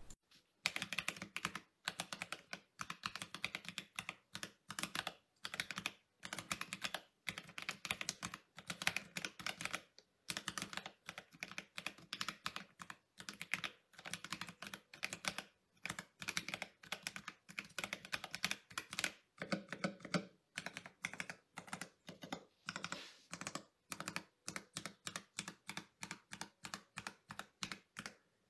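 Typing sound test on a mechanical keyboard fitted with stock, unlubed Akko CS Sponge tactile switches and PBT keycaps: a steady run of quick keystroke clacks, with a few brief pauses.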